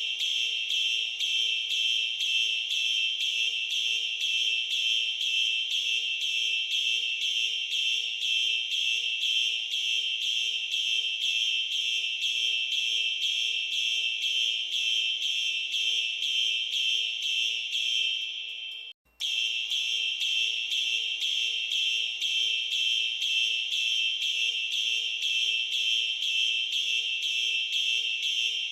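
Fire alarm sounding in march time: a high, shrill tone pulsing on and off in a fast, even rhythm. About two-thirds of the way through it fades and cuts out for a moment, then starts again.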